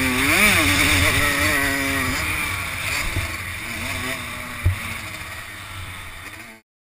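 Kawasaki KX85 two-stroke motocross bike engine revving up and down on a dirt track, then easing off, with wind noise on the helmet camera. A single thump comes about two-thirds of the way in, and the sound cuts off suddenly near the end.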